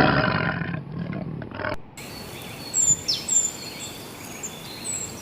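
A tiger roaring for about the first two seconds, cut off suddenly. Then small birds, sparrows, chirping with short high whistles and a falling note.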